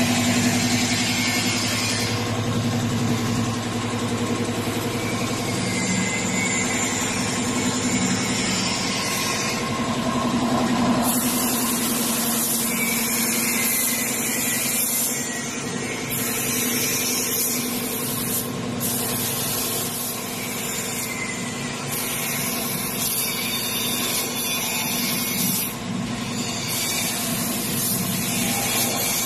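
Air compressor running steadily throughout, with the spray gun's air-and-paint hiss starting about a third of the way in and coming in about five long bursts of a few seconds each as the trigger is pulled and released.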